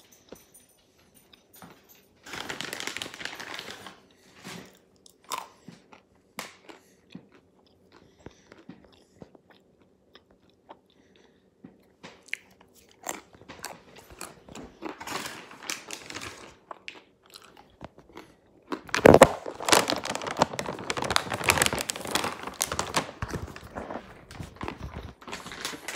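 A person chewing almonds right at the microphone: crisp mouth crunches in short scattered bursts, growing denser and louder over the last several seconds.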